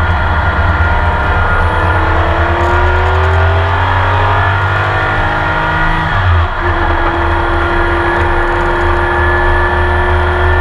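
Porsche 911 RSR's flat-six racing engine heard from inside the car, revving up under full throttle through a gear, with a quick upshift about six seconds in, then pulling up through the next gear more slowly.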